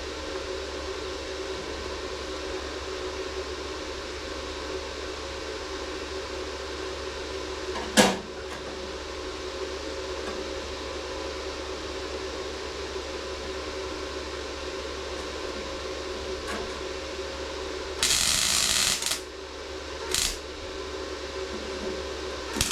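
MIG welder tacking the sheet-steel rear panel: short bursts of arc crackle, one lasting about a second near the end, a brief one just after, and another starting right at the end, over a steady electrical hum. A single sharp click about eight seconds in.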